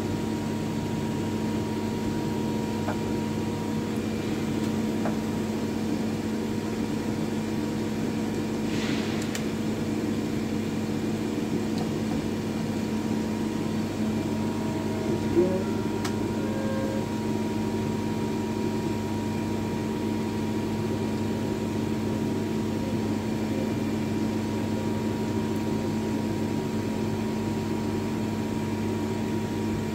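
A 2009 Miyano ABX-51TH2 CNC lathe humming steadily while powered up but not cutting, with several steady tones in the hum. There is a brief hiss about nine seconds in and a single small click about halfway through.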